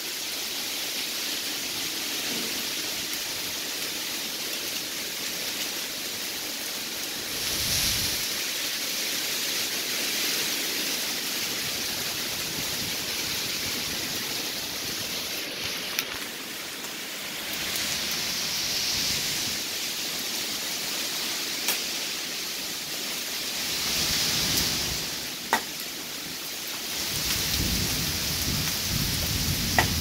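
Heavy rain pouring steadily in a thunderstorm, swelling in waves several times. A few sharp ticks stand out, and there is a low rumble near the end.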